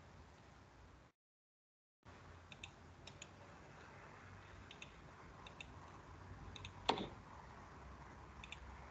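Computer mouse clicks, single and in quick double pairs, over a faint hiss, with one louder click about seven seconds in. The sound drops out completely for about a second near the start.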